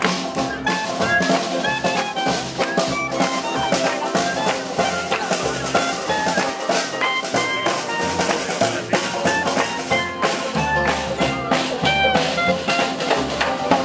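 Small jazz band playing an upbeat swing tune live: clarinet lead over banjo, upright bass and snare drum, with a steady beat of drum hits.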